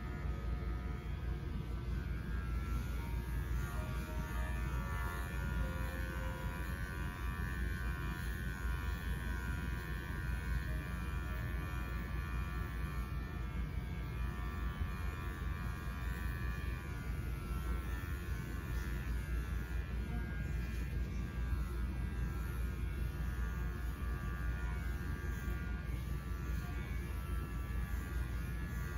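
Electric dog grooming clippers running with a steady buzzing hum, unbroken throughout.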